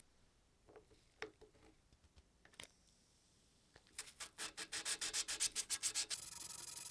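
Hand rubbing on the corroded pocket knife: a few faint scrapes and ticks, then quick back-and-forth strokes about five a second from about four seconds in, running into a steady rasping rub near the end.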